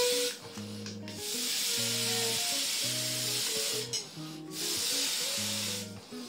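Background music with a repeating bass line, over a breathy hiss of air being blown into a balloon in two long puffs, broken briefly about four seconds in.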